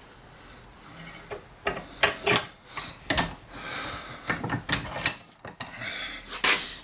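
Metal wire rack being handled and bent: a string of sharp metallic knocks and clinks with scraping and rubbing between them, starting about a second in.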